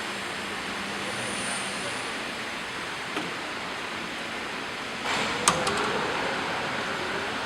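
Steady running noise from a spot welding machine for air storage tanks. About five seconds in, a louder hiss starts with a sharp click.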